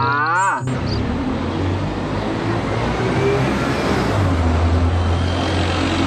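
Diesel city bus engine running as the bus drives along a street, a steady low hum over road noise that grows stronger about four seconds in. A brief voice is heard at the very start.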